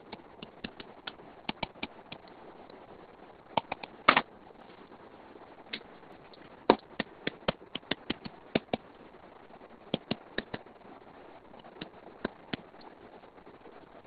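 Stylus tip tapping and clicking on a tablet's glass screen during handwriting: irregular sharp clicks in short clusters, with a louder knock about four seconds in.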